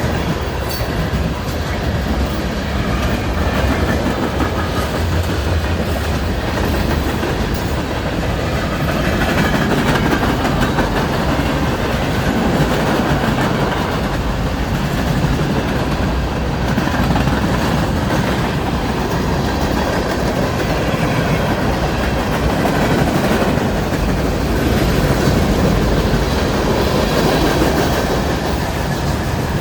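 A train rolling past close by: a steady rumble, with its wheels clickety-clacking over the rail joints as the cars go by.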